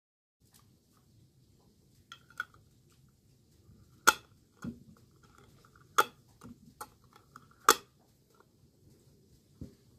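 Sharp clinks of kitchenware knocking together: a few light taps, then four louder clinks about two seconds apart, each with a brief ring.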